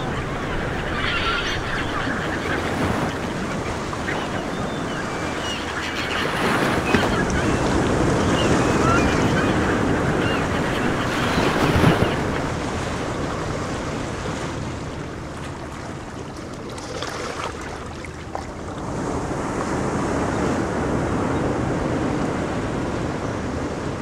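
Ocean waves and surf washing steadily, swelling and easing, with wind noise. Short high calls come through faintly now and then.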